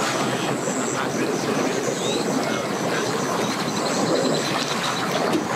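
Sea-Doo personal watercraft's engine and jet pump running steadily at low speed as it backs off the trailer into the water, a continuous even rushing noise.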